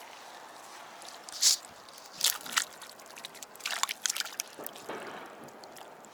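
Water splashing and sloshing in a few short, sharp bursts, the loudest about a second and a half in and a cluster near the middle.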